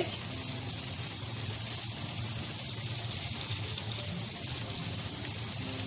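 Herrings and sliced onions frying in oil in two pans: a steady sizzle.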